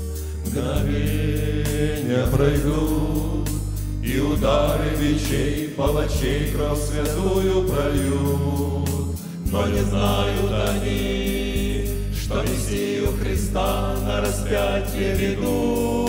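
Male vocal quartet singing a slow hymn in close harmony into microphones, over a recorded accompaniment with a steady low bass. The singing swells and breaks at phrase ends, with short dips about 6, 9 and 13 seconds in.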